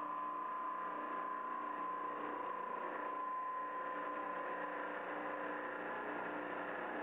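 Hwacheon M4-5AX five-axis milling center machining a steel mold with an end mill: a steady high whine over a hiss, fading slightly after the middle.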